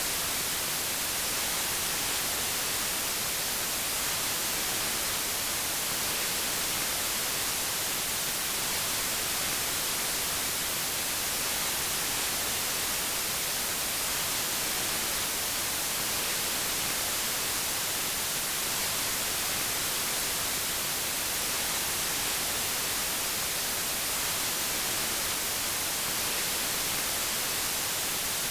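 Steady white noise: an even hiss, strongest in the high frequencies, with no change in level.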